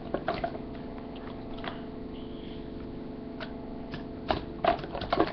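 Hands handling small objects, making scattered clicks and light knocks, with a quick cluster of them near the end, over a steady low hum.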